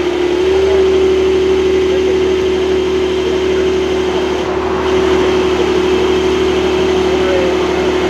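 A car engine running steadily at idle, a constant drone holding one pitch without revving.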